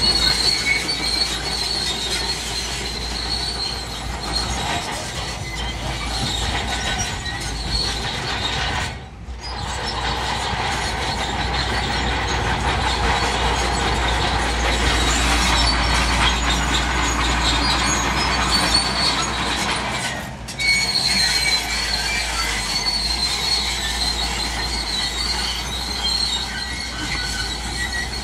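Crawler bulldozer running under load, its steel tracks squealing and clattering over a steady engine rumble. The sound breaks off briefly twice, about nine and twenty seconds in.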